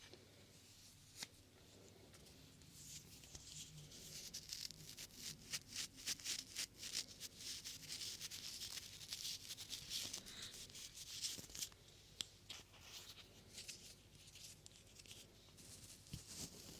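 Close, soft brushing and rubbing against a binaural microphone: a hissing rustle that swells a few seconds in and eases off after about eleven seconds, dotted with small clicks.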